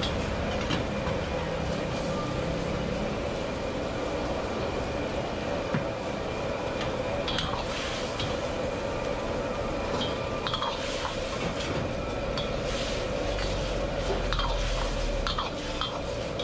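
A steel wok ladle scraping and clinking against the wok as oysters are stir-fried in sizzling, bubbling sauce. Sharp clinks come every second or few over a steady hiss.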